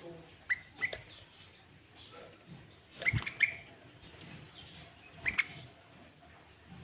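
Sooty-headed bulbul calling in short, sharp chirps, in small clusters about half a second in, around three seconds in, and again near five seconds.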